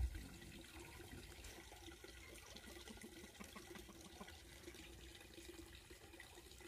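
Faint, steady water sounds at a goats' drinking trough, with light ticks scattered through.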